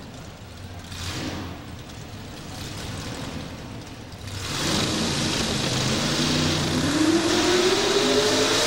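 Chevrolet modified 4x4 pulling truck's engine idling on the starting line, then brought up to revs about four seconds in, its pitch climbing steadily near the end as the truck starts its pull.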